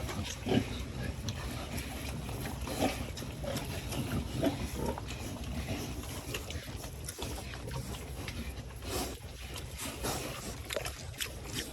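Two-month-old piglets grunting in short, irregular calls every second or two, over a steady low background rumble.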